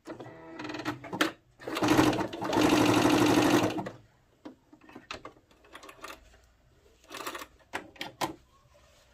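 Computerised household sewing machine stitching a test row of narrow zigzag: slow at first, then running fast for about two seconds before it stops. A few sharp clicks and light fabric-handling sounds follow as the cloth is taken out.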